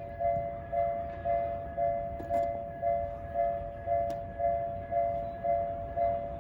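Japanese level-crossing warning alarm ringing, a two-tone clang repeating about twice a second.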